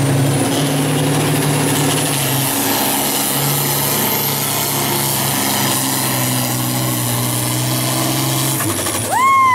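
Diesel pulling tractor's engine running hard under full load as it drags a weight-transfer sled, with a steady high whine above the engine note. Near the end the engine note drops away and a loud tone rises and falls.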